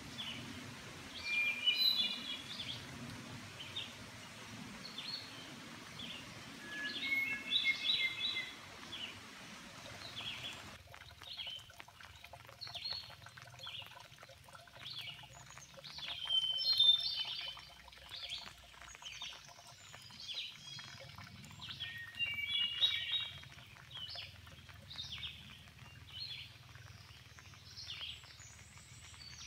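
Woodland songbirds singing: a louder short song phrase comes back every six seconds or so over scattered chirps from other birds. The background hiss drops abruptly about a third of the way through.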